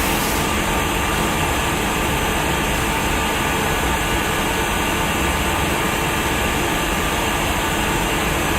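Steady, even machine noise with a faint hum running underneath, with no knocks or changes.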